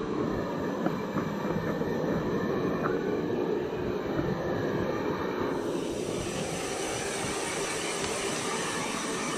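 Hand-held electric hair dryer blowing steadily while drying a wet dog's coat. Its hiss grows brighter about five and a half seconds in.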